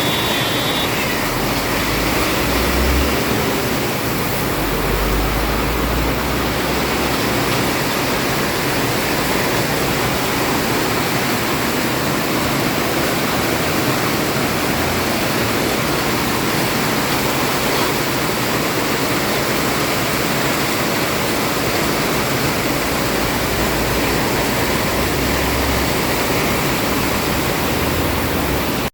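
Heavy rain pouring down in a steady, loud hiss, with occasional low rumbles underneath.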